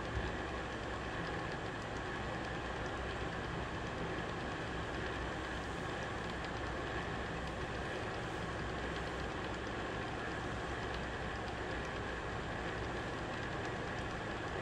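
WMW BS 40 AI column drill running with its spindle turning and the quill power feed engaged at the minimum feed rate: a steady, even hum of the motor and gear drive with a faint steady whine.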